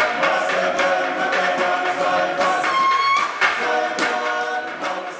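Traditional Fijian meke chant sung by a group of voices in unison, over a steady beat of sharp percussive knocks about twice a second; it starts to fade near the end.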